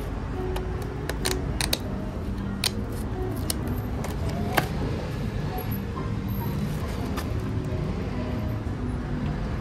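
Scissors snipping through the paper seal sticker on a cardboard sandwich box: a handful of sharp clicks over the first five seconds or so. Then the cardboard box and its paper inner flap are handled as the box is opened, over a steady background hum.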